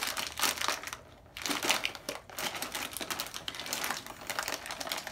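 Potato chip bag crinkling as it is pulled and worked open by hand: a dense run of crackles, with a brief lull about a second in.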